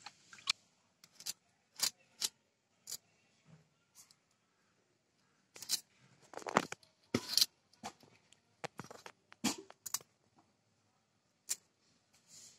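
Small fish being scaled and cut against a boti, a fixed curved blade: a series of short, sharp scrapes and clicks at an irregular pace, heaviest about six to eight seconds in.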